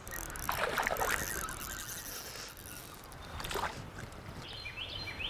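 A hooked white bass thrashing and splashing at the water's surface as it is reeled in to the bank, in two bouts: about half a second in and again around three and a half seconds in.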